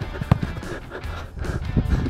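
Background music laid over the footage.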